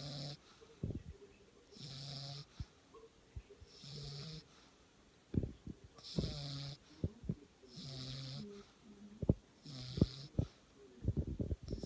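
Snoring: a regular snore on each breath, about every two seconds, with short clicks and crackles between the snores that come thicker near the end.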